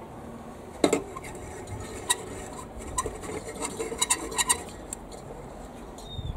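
A glass high-pressure sodium lamp bulb being screwed into a streetlight's E40 lamp socket. A louder knock comes about a second in, then a run of small clicks and clinks as the bulb's screw base turns in the socket.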